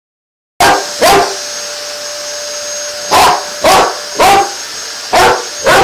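A vacuum cleaner runs with a steady whine while a Rottweiler lets out seven short, loud bark-like blasts at it, mostly in pairs, the dog's 'farting noises'.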